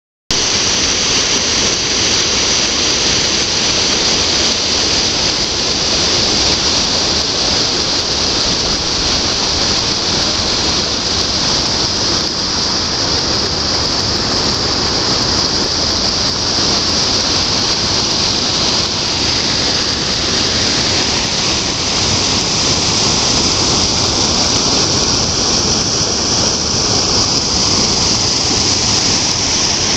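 Steady, loud rush of water pouring over the Venta Rumba, a very wide, low waterfall.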